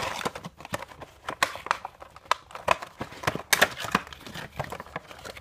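A cardboard Funko Pop box being opened and handled to take the vinyl figure out: irregular clicks, scrapes and crinkles of the packaging.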